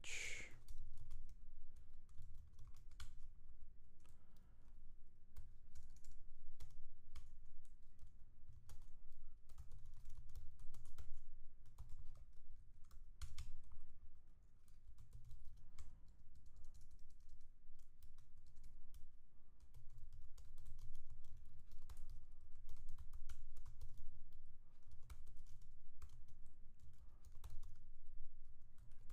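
Typing on a computer keyboard: a continuous run of key clicks, with brief lulls about four and fourteen seconds in.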